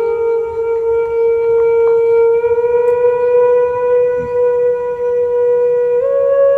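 Background music: a long, sustained wind-instrument-like note that steps up slightly in pitch at the start and again about six seconds in.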